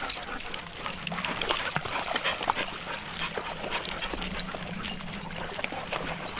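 Several dogs panting and moving about, with many short scuffs and crunching footsteps on gritty ground.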